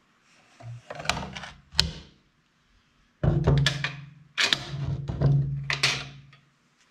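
Steel five-gallon pail of concrete sealer being handled and set down on a concrete floor: a few light knocks, then two heavy hollow thunks about three and four and a half seconds in, each with a short low ring.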